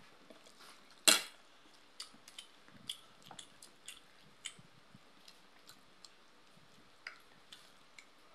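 Close-up eating sounds: chewing and lip smacks over boiled pork and rice, with scattered small clicks of a spoon against a plate. One louder click comes about a second in.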